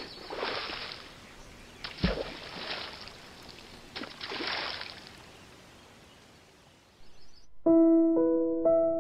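Three splashes into water about two seconds apart, each a sudden hit followed by about a second of falling spray, the middle one with a deeper plop. Piano music begins near the end.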